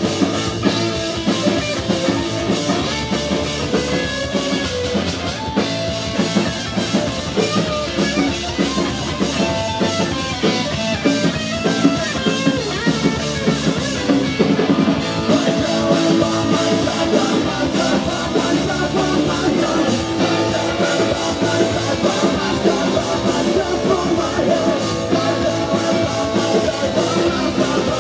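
Live rock band playing loud: electric guitar, bass guitar and drum kit.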